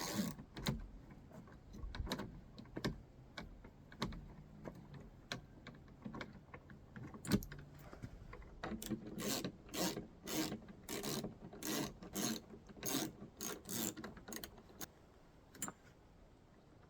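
Ratchet wrench with a 10 mm socket working a bolt on the tractor cab's door latch. It gives scattered clicks at first, then a steady run of ratcheting strokes, about three a second, from a little past halfway until near the end.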